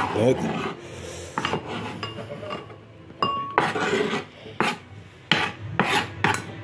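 A knife blade scraping sliced mushrooms across a cutting board, in a series of short rasping strokes.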